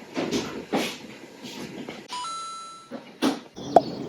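A short two-note electronic chime, a lower note stepping up to a higher one that fades out, about two seconds in, among a few brief noisy bursts; a sharp click near the end.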